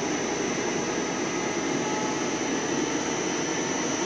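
CNC lathe running a facing pass, its spindle turning the chucked bar stock at speed: a steady mechanical hum and hiss with a thin, high, steady whine.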